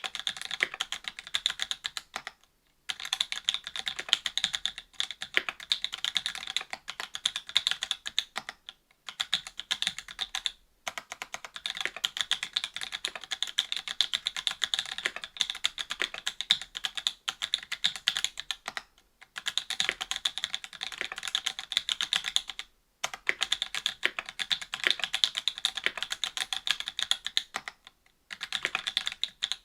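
Fast typing on a mechanical keyboard with stock NovelKeys BOX Cream linear switches, an FR-4 plate and GMK keycaps: a dense run of key clicks, broken by a few short pauses.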